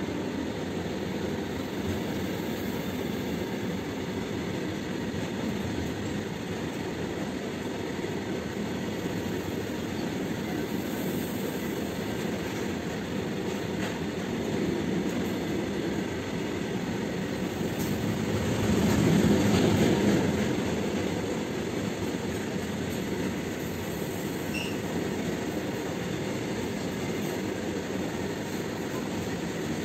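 Loaded covered goods wagons of a freight train rolling past, a steady rumble of steel wheels on rail that swells louder about twenty seconds in.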